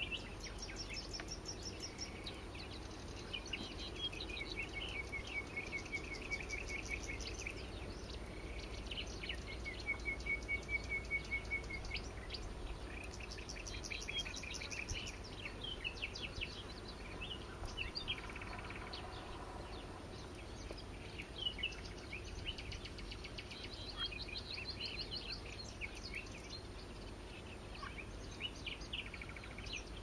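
Small birds singing and calling in a wetland chorus, a continuous mix of overlapping chirps and rattling trills, over a low steady background hum.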